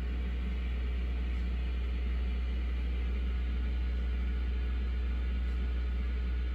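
A steady low rumble with a hiss over it, running evenly without change.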